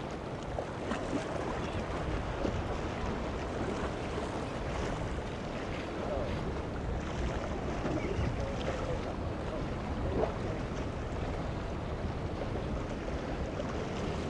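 Wind on the microphone and choppy water at an inlet jetty, a steady rush with faint distant crowd voices now and then.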